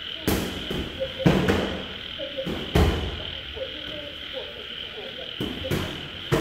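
Boxing gloves landing during sparring: a scattered series of sharp punch impacts, the hardest about a second and three seconds in. Behind them runs a steady high insect trill, with frogs croaking.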